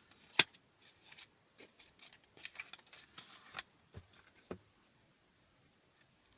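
Eyeshadow palette and its packaging being handled and opened: a sharp click, then a couple of seconds of rustling and scraping of packaging, then two lighter clicks.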